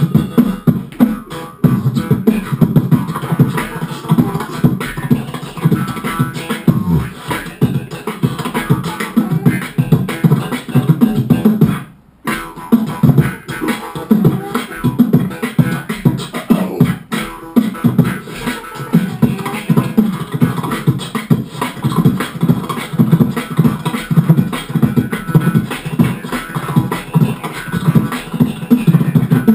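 Live beatboxing into a handheld microphone: a dense, fast rhythmic pattern of vocal drum sounds, breaking off for a moment about twelve seconds in.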